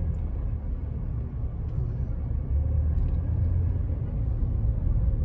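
Low rumble of a car's engine and tyres heard from inside the cabin while driving, growing a little louder about two and a half seconds in.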